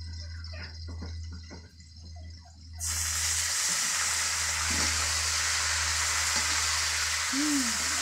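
Water spinach (kangkung) hitting hot oil in a wok: after a quiet start, a loud sizzle sets in suddenly about three seconds in and keeps on steadily as the greens are stir-fried.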